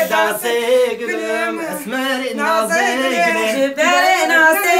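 Men and women singing a folk dance song together, unaccompanied.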